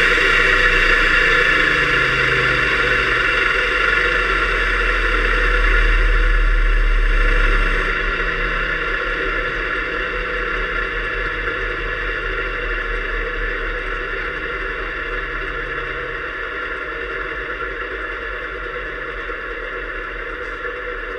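Fairchild J44 turbojet running, heard through the mounting frame from inside a waterproof camera case, so it comes across muffled, with the engine's internal whine and vibration rather than the exhaust blast. About eight seconds in the sound steps down and then slowly keeps falling.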